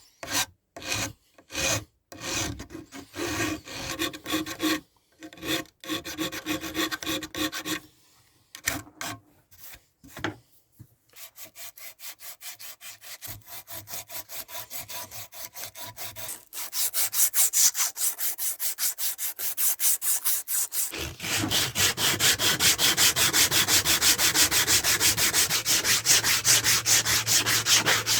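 Hand tool rubbing on wood in repeated back-and-forth strokes: slow and spaced for about the first ten seconds, then faster and steadier, growing louder about two-thirds of the way through.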